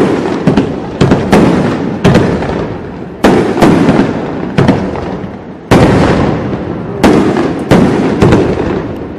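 Fireworks bursting in quick succession: loud bangs about once or twice a second, each followed by a fading echo that overlaps the next.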